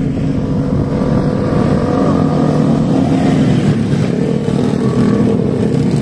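A line of small motorcycles riding past, their engines running in a continuous, loud drone of overlapping engine notes.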